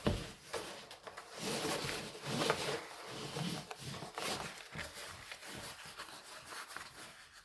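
A large diamond painting canvas being handled and shifted, rustling irregularly, with a soft bump at the start; the rustling thins out toward the end.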